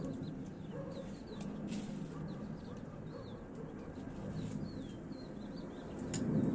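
Birds chirping in short, rising and falling calls over a steady low rumble, with a few sharp clicks.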